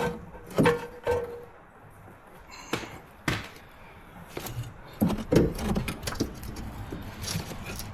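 Metal tools and parts being handled: scattered sharp clinks and knocks, one with a brief high ring a little under three seconds in, then a quicker run of knocks from about five seconds on.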